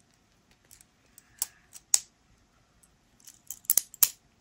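Sharp metallic clicks from a Taurus 856 revolver's action as the trigger is pulled with a paper clip through the hammer strut, letting the strut and its spring come free. About five clicks, spread out, with the loudest bunched near the end.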